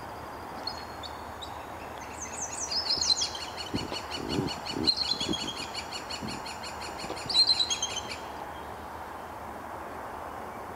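Bald eagle calling: a rapid chittering series of high, thin piping notes, with a few quick falling whistles at the start, lasting about six seconds and then stopping.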